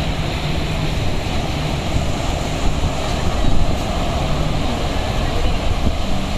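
Steady wash of breaking surf, with heavy wind rumble on the microphone.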